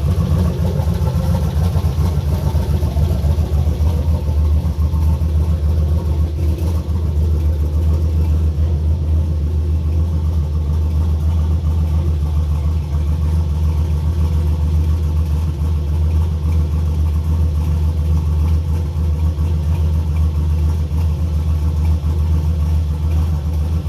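Turbocharged 4.8 L LS V8 in an SN95 Mustang idling steadily, with a deep, even rumble.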